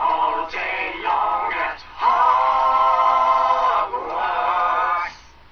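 Voices singing a chanted phrase in short sung syllables, with one long held note in the middle; the singing stops about five seconds in.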